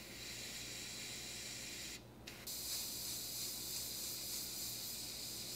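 Airbrush spraying touch-up paint: a steady air-and-paint hiss that stops briefly about two seconds in as the trigger is let off, then starts again a little stronger.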